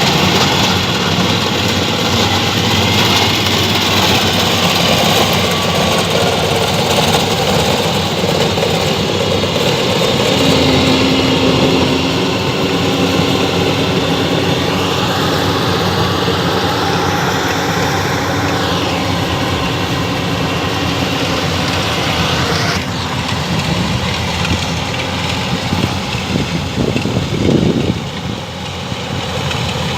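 Combine harvester running steadily, its engine and machinery giving a loud, continuous mechanical din, with an abrupt change in the sound about two-thirds of the way through.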